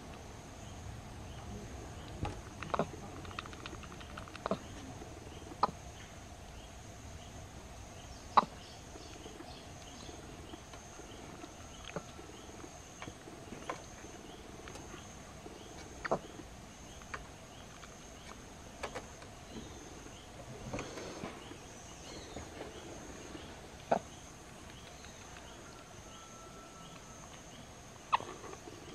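Insects making a steady high drone, with a faint chirp repeating at an even pace. About a dozen sharp taps and knocks break in, the loudest about eight seconds in.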